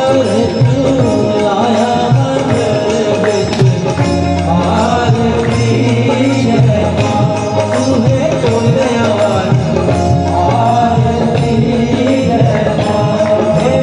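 Hindu devotional aarti song: singing over tabla and melodic instrumental accompaniment with a steady beat.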